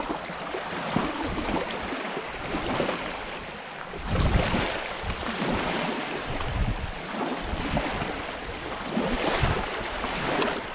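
Lake waves washing onto a rocky shore, swelling and falling back several times, with wind buffeting the microphone.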